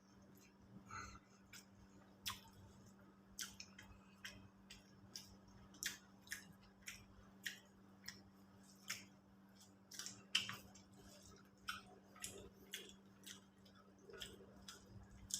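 Close-up eating sounds: chewing, with irregular sharp wet clicks and smacks about once or twice a second.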